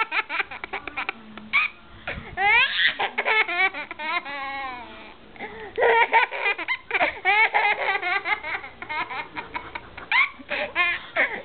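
A person laughing uncontrollably in high-pitched, rapid fits, with a long wavering drawn-out laugh about four seconds in and short gasping pauses between bursts.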